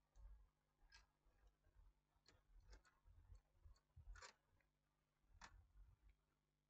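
Near silence with a few faint, sharp clicks and taps from a screwdriver and hands handling the opened DVD player's chassis and circuit board.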